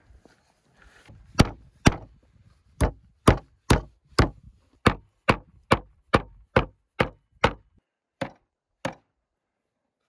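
Wooden meat mallet pounding slices of raw beef on a wooden cutting board: about fifteen sharp blows at roughly two a second, stopping near the end.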